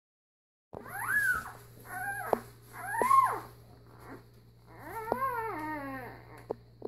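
Newborn puppy crying: about five high whimpering cries, each rising then falling in pitch, the last one the longest.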